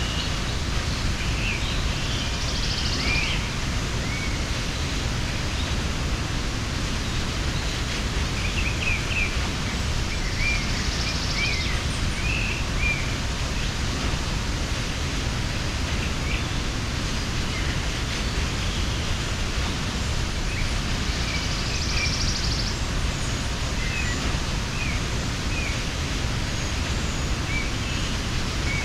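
Waterfall: a steady rush of falling water, with birds chirping now and then over it and a short buzzy trill about three times.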